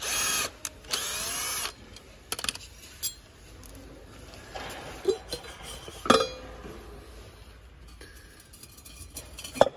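Cordless drill spinning out the cover screws of a tire changer bead breaker cylinder in two short bursts, its speed wavering. Then scattered clinks and knocks of screws and metal parts being handled, with a sharp knock about six seconds in and another near the end.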